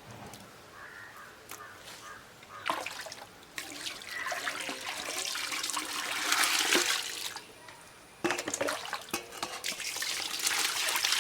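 Cow-dung and cow-urine slurry splashing and sloshing in a container as groundnut oil cake powder is worked into it, in two long bouts, the first about three and a half seconds in and the second near the end.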